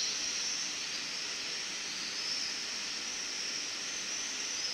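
A steady, high-pitched chorus of insects over an even background hiss.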